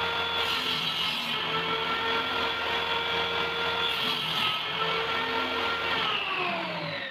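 Table saw running with a steady whine, its blade cutting through plywood on a crosscut sled in two hissing passes. Near the end the motor is switched off and its pitch falls as the blade spins down.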